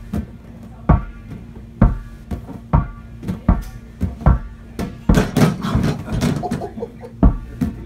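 Sharp knocks about once a second, several with a brief ringing tail, over background music.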